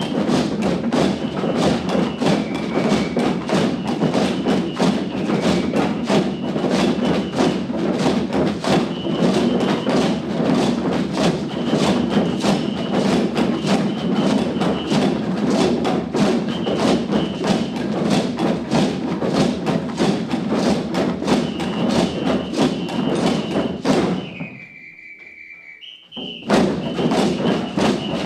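A large ensemble of hand drums, rope-tensioned drums and plastic-bucket drums played together in a steady rhythm. A high tone that steps between two pitches sounds over it. Near the end the drumming breaks off for about two seconds, then comes back in.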